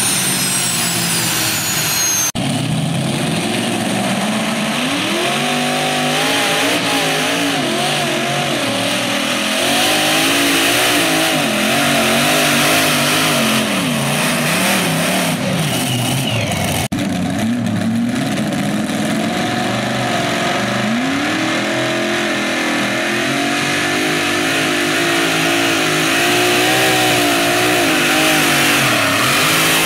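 Modified pulling tractors with several supercharged engines running flat out under load as they pull the sled; the engine note rises and falls over and over, with a change to a second tractor about two-thirds of the way through. For the first two seconds a high turbine whine falls in pitch as a turbine-powered tractor winds down.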